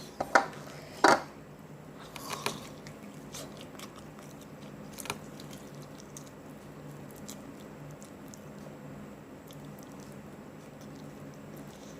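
Someone biting and chewing spicy chicken close to the microphone: a few sharp, loud crunches in the first couple of seconds, then quieter, scattered chewing sounds.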